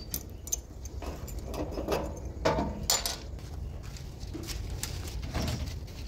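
Keys jangling and metal clinking on the locking fuel tank cap of a JCB backhoe loader as it is unlocked and taken off: a few short, sharp clinks over a low, steady rumble.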